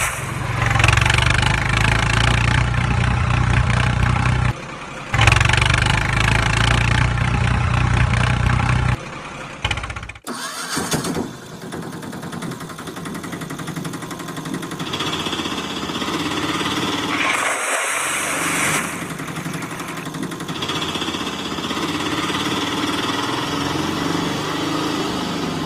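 Vehicle engine sound effects. A low engine runs for about nine seconds, with a short break near the middle. After a brief drop comes a different engine sound with a steady high whine.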